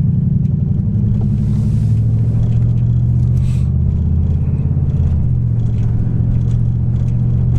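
Steady low drone of a car's engine and road noise inside the cabin, picked up by a rear-view mirror dash cam's built-in microphone.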